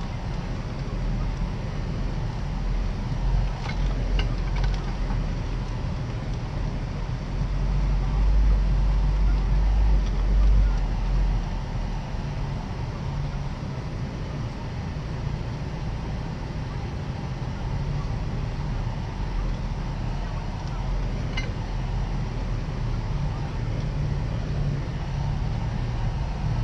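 A four-wheel-drive vehicle's engine and tyres rumble steadily, heard from inside the cab while driving on a snowy road. The rumble swells for a few seconds in the middle, and a few brief clicks or knocks sound about four seconds in and again about twenty seconds in.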